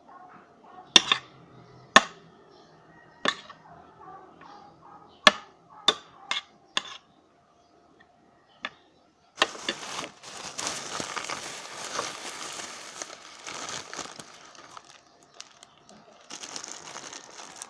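Close-up eating sounds: a series of sharp clicks of a utensil against a dish, then after a short pause a long stretch of dense crackling, which returns near the end.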